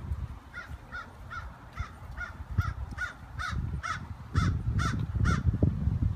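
Crows cawing in a steady series of about a dozen short calls, about two a second, over a low rumble that grows heavier in the second half.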